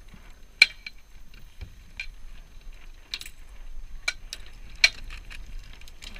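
Irregular light clinks and knocks of gear against a Dart 18 catamaran's fittings and rigging, about six sharp strikes a second or so apart, over a low steady rumble.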